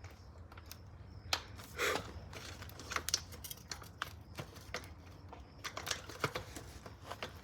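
Irregular metallic clicks and knocks of a bicycle rear wheel's axle and chain being worked into the frame's dropouts, with a brief scrape about two seconds in.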